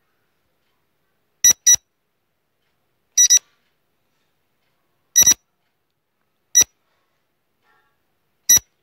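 Short, high electronic beeps of a quiz countdown timer. They come in pairs at first and then singly, roughly every one and a half to two seconds, five in all.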